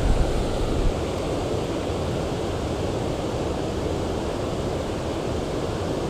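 Steady rushing of river water pouring over a low concrete weir, with a few low thumps on the microphone in the first second.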